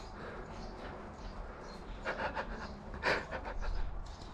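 Hard breathing from the airsoft player wearing the camera, with a few louder breaths about two and three seconds in.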